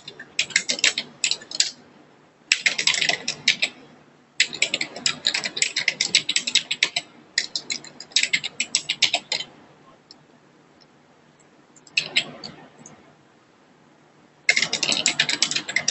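Fast typing on a computer keyboard in bursts of one to three seconds, separated by short pauses, with a longer quiet stretch about ten seconds in.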